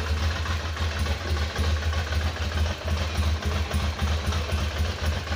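Ducati 600's air-cooled V-twin engine idling, a steady low throb.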